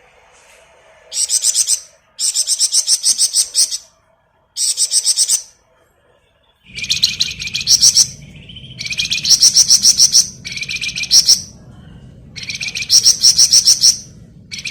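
Flamboyan songbird singing in rapid, high, buzzing trills ('ngebren'), given in about seven bursts of half a second to a second and a half each with short pauses between. A low steady hum comes in partway through.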